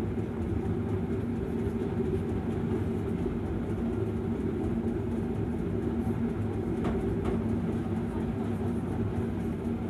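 Steady low mechanical hum and rumble, with a faint held drone. A couple of faint marker strokes on a whiteboard come about seven seconds in.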